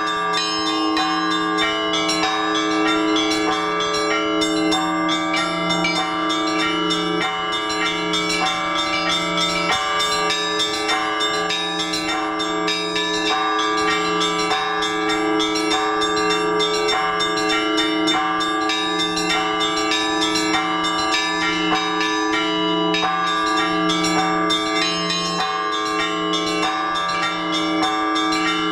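Orthodox church bells rung by hand from a bell tower. Several bells of different pitches are struck in quick succession, over a lower bell that sounds again and again at a steady beat.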